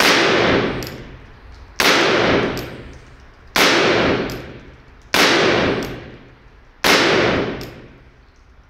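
Remington New Army 1858 black-powder percussion revolver fired five times, about a shot every 1.7 seconds, each report ringing out and dying away over about a second. Every freshly seated percussion cap fires its chamber.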